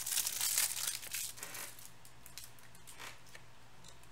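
Clear plastic wrapper of a trading-card pack being torn open and crinkled, loudest over the first second and a half, then a few faint ticks as the cards are handled.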